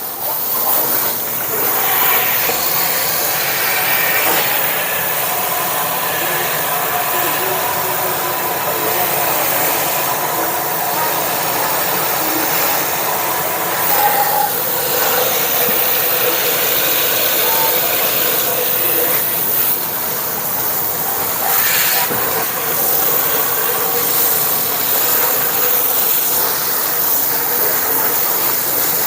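Steady spray of water washing mud out of a flood-damaged gas furnace, a continuous hiss of water hitting the metal that holds on for the whole stretch.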